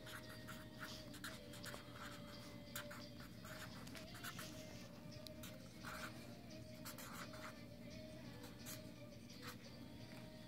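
Felt-tip marker scratching across paper in many short strokes as letters are written by hand, with a faint steady tone underneath.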